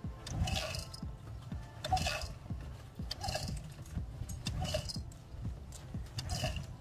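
Honda CD70 kick-starter worked repeatedly: five metallic clanking strokes about a second and a half apart, each with the engine turning over briefly.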